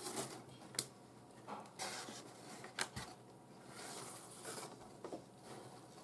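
550 paracord being threaded under a crossbar and pulled through by hand: faint swishing and rubbing of nylon cord, with a few sharp ticks.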